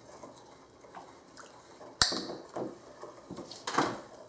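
Wooden stir sticks stirring liquid watercolor and Epsom salt in small ceramic bowls, scraping and clinking against the bowl sides. A sharp click comes about two seconds in, with more scrapes near the end.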